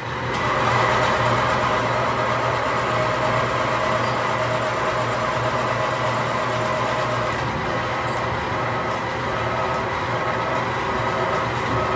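Hydraulic press running under load as it forms a steel tractor rear wheel rim: a loud, steady hum with higher whining tones, starting abruptly as the control lever is pulled.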